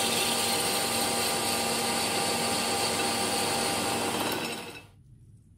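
Metal lathe running steadily with a whine, spinning a steel clutch disc against the cutting tool. The sound cuts off abruptly near the end.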